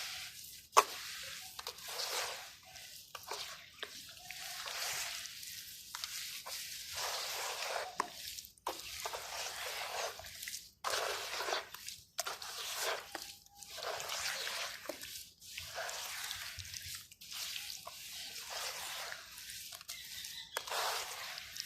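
Clumps of dusty dirt, sand-cement and stones crumbling in water: a series of short, crunchy, watery crumbles and splashes, one after another, with a sharp click about a second in.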